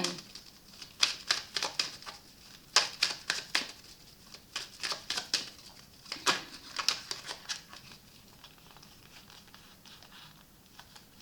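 Tarot cards being handled and laid out on a table: a run of quick, irregular clicks and taps that thins out after about seven seconds.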